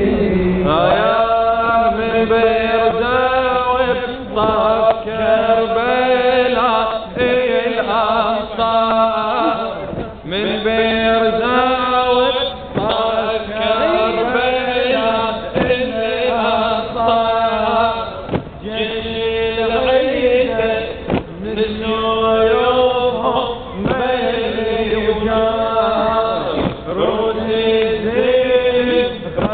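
A man chanting an Arabic latmiyah, a melodic mourning lament, in long rising and falling phrases. A sharp slap comes about every three seconds between the phrases, fitting the mourners' rhythmic chest-beating that goes with a latmiyah.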